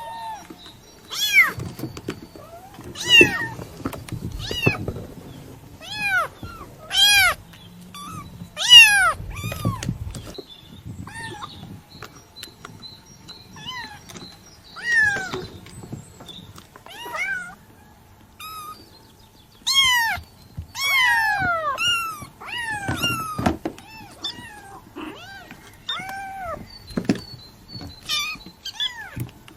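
Kitten meowing over and over: short, high-pitched, arching calls about one every second or two, some overlapping one another.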